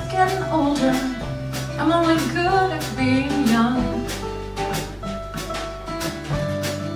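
A woman singing with a live band, guitar and steady bass notes under her voice. Her voice drops out about four seconds in and the band plays on.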